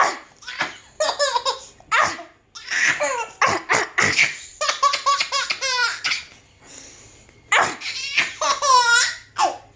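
A baby laughing in repeated bursts of belly laughs and giggles, with short pauses between, some of them rising and falling in pitch.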